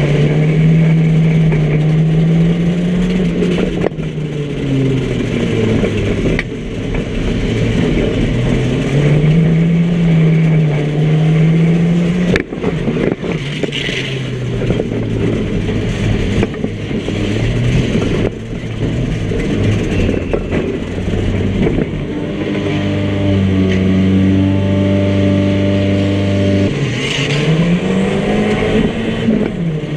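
Small banger car's engine heard from inside the cabin, revving up and falling back over and over as it is driven, held at steady revs for a few seconds near the end. A few sharp knocks and bangs cut through it.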